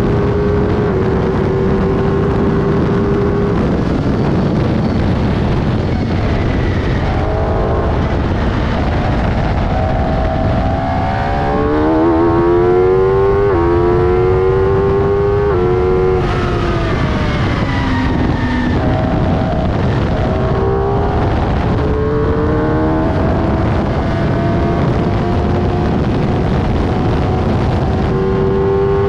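The 1000 cc motorcycle engine of a Pacemaker K7 bike-engined racing car driven hard, with rushing wind and road noise in the open cockpit. The engine holds high revs, drops back around seven seconds in, then climbs through a run of quick upshifts, each a rise in pitch cut off by a sudden drop, between about ten and sixteen seconds in; it falls away under braking and then pulls up through the gears again.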